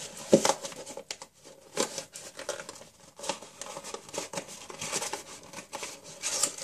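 Paper and packaging being handled: rustling and crinkling as a booklet is pulled out of a camera box, with irregular taps and clicks and a sharp knock about a third of a second in.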